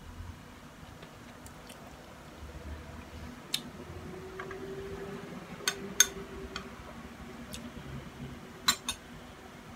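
Spoon and fork clinking against a ceramic bowl and plate while eating noodles: scattered sharp clinks, the loudest about six seconds in and a quick pair near the end, with soft eating noises between.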